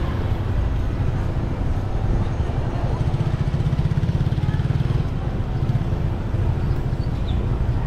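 Motorcycle engine running steadily at low speed, a low even pulsing that grows a little stronger about two and a half seconds in.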